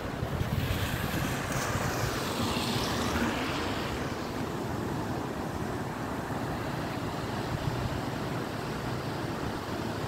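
Steady rushing of a river in flood, fast brown water breaking over rapids, with wind buffeting the microphone. A passing vehicle swells and fades in the first few seconds.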